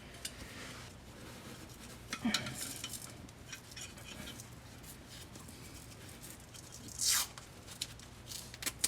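Wiring harness being wrapped with loom tape: quiet handling noises, with a short rip of tape pulled off the roll about seven seconds in.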